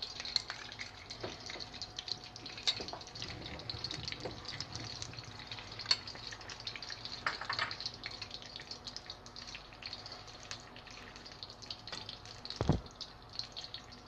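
Ghee heating in a kadhai, crackling with a steady scatter of small pops. There is one dull knock near the end.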